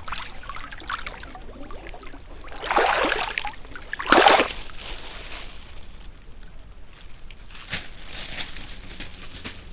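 River water sloshing and splashing, with two louder splashes about three and four seconds in, over the steady run of the stream.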